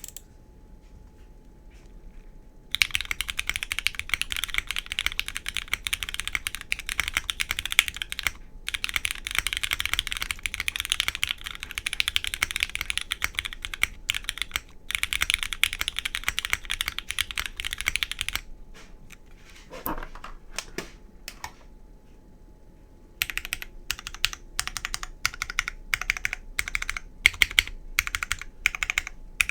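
Custom Snow60 mechanical keyboard being typed on: lubed and filmed Ultraglides switches on a PP plate with no foam, under GMK Shoko keycaps. Fast continuous typing starts about three seconds in and runs for about fifteen seconds with two brief breaks, then a pause with a few stray key presses, then slower single keystrokes, about two a second.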